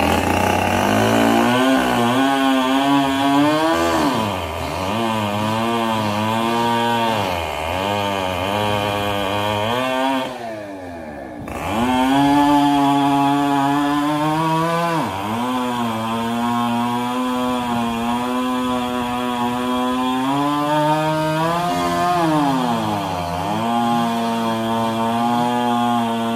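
Two-stroke chainsaw running at high revs, its pitch dipping and recovering again and again as it cuts into wood. It drops back briefly about ten seconds in before going to full throttle again.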